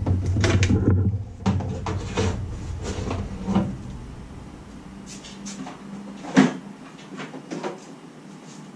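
Clicks, knocks and rattles of a battery charger and its leads being unhooked and lifted out of a Jeep's engine bay, with one sharp knock about six seconds in.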